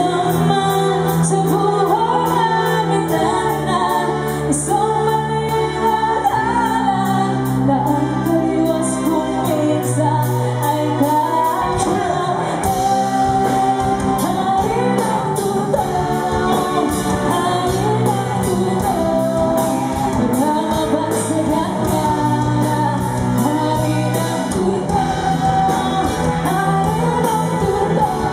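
Music with singing over a steady beat and a bass line that changes note every few seconds.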